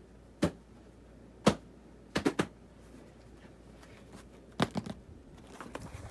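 Sharp knocks and clicks of handling close to the camera: a single knock, another a second later, then quick clusters of three or four knocks.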